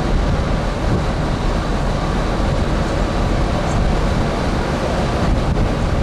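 Steady, loud rumble of a dredge's engines and machinery under way at sea, mixed with wind on the microphone.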